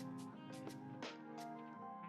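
Background music: soft plucked guitar with sustained notes.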